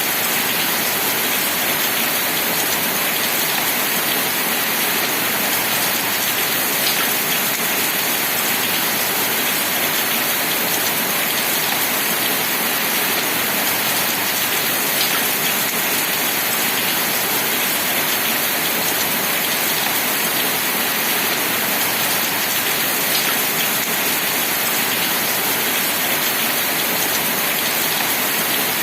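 Steady rain falling on surfaces, an even dense hiss with occasional faint individual drop ticks.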